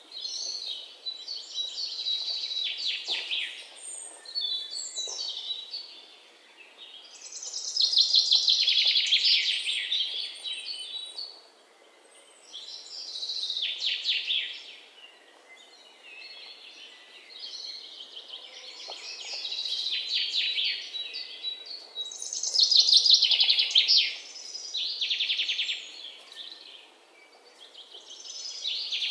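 Birds singing: high phrases of rapid trilled notes, each lasting a second or two, repeating every few seconds with short pauses between.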